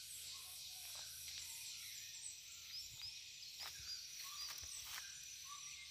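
Faint birds chirping in roadside scrub over a steady high buzz of insects, with a few faint knocks.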